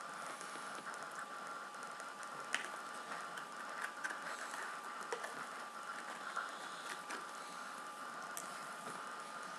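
A metal fork clicking and scraping against a bowl as food is scooped up and eaten, a few small clicks spread through, over a faint steady high hum.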